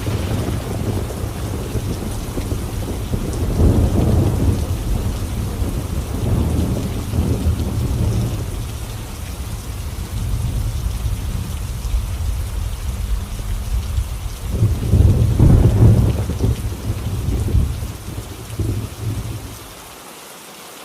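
Rain falling steadily under rolling thunder. The low rumble swells a few seconds in and again past the middle, then fades away near the end.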